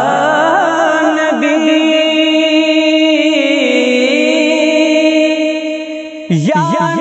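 Wordless, chant-like vocal music of a naat intro: several held voices with a steady, regular wobble in pitch, a higher line joining after about a second and a half. The sound sinks slightly, then a new phrase comes in just after six seconds.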